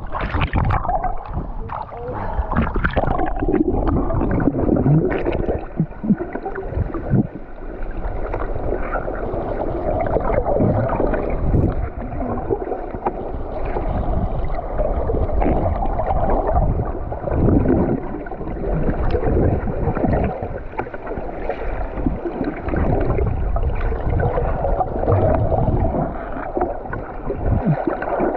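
Water sloshing and gurgling against the hull of a small boat, an uneven, surging noise.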